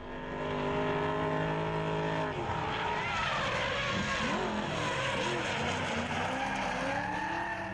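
Two drift cars sliding through a corner in tandem: engines held at high revs and tyres squealing as they spin in smoke. A steady engine note for the first two seconds or so gives way to a wavering squeal of tyres and shifting revs.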